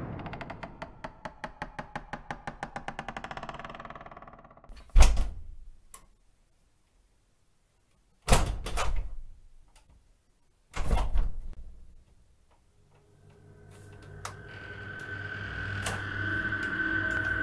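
Intro sound effects: a fast run of ticks that slows and fades over about four seconds, then three heavy knocking thuds a few seconds apart with near silence between them. Near the end a low drone swells up with a steady high tone over it.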